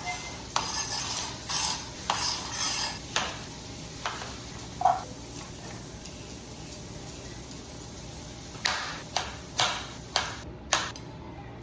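Kitchen utensils, such as tongs or a fork, clacking against a pan while chicken is seared: a quick run of sharp clacks near the start and another near the end, over a steady hiss.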